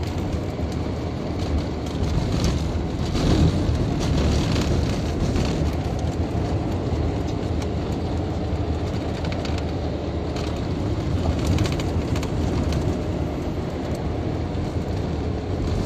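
Inside the cabin of a moving work vehicle: steady engine and road noise with occasional knocks and rattles over the road surface.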